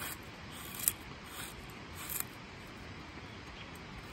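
Crooked knife slicing shavings off an old-growth redwood post, four or five short, sharp cuts in the first half, the loudest about a second in. A creek's steady rush runs underneath.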